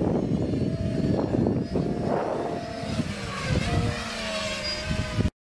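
Small electric motors and propellers of a homemade four-rotor RC model jet buzzing as it flies past, a steady tone that wavers slightly in pitch over a rushing rumble. The sound cuts off suddenly just before the end.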